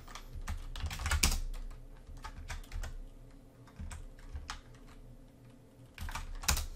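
Computer keyboard typing: irregular keystrokes, bunched about a second in and again near the end.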